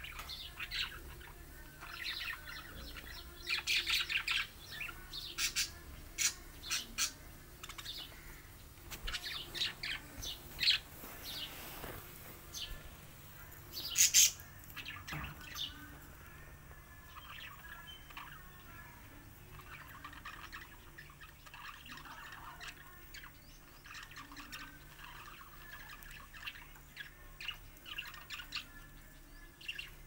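Budgerigars chirping and chattering, short high calls coming thick and fast, with one sharp, loud sound about fourteen seconds in. The second half is softer, steadier chatter.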